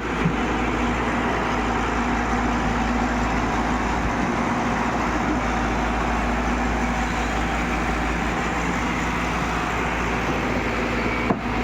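Diesel engine of heavy earthmoving machinery running steadily at constant revs, with a short break near the end.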